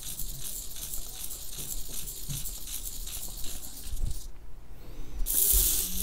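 Small hobby servo motors whirring as they sweep their horns, with a rapid pulsing chatter of about five pulses a second. Near the end comes a short, louder burst of high hiss.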